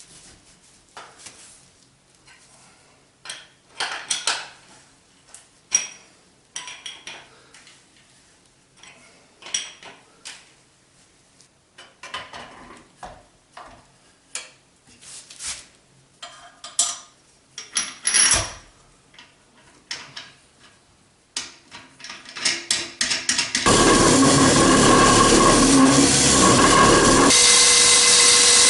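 Scattered metal clanks and knocks from handling tools, then, about 24 s in, a dry diamond core drill with a 200 mm bit starts up and runs loudly and steadily.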